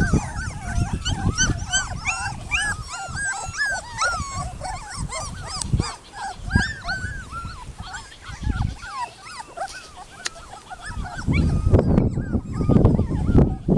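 Brittany puppies whimpering and yipping: many short, overlapping squeaky calls that rise and fall in pitch, thinning out after about six seconds. Near the end the calls fade and a loud low rumbling noise takes over.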